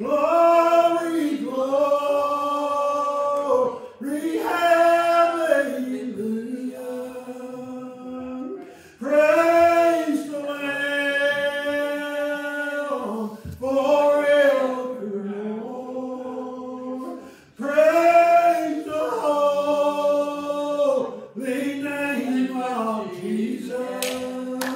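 A man singing a slow gospel song without accompaniment, holding long notes in phrases of about four seconds with short breaks between them.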